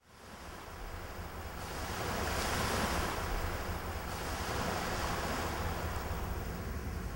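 Steady rushing wind with a low rumble of wind on the microphone, fading in from silence and swelling about two seconds in.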